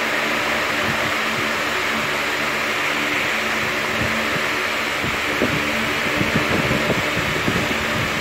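A fan running with a steady whir and a faint low hum. From about five seconds in come a few soft, irregular knocks.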